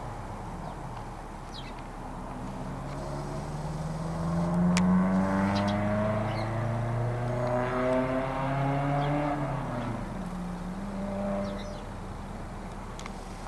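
A motor vehicle's engine climbs in pitch and gets louder over a few seconds, holds, then drops away about ten seconds in.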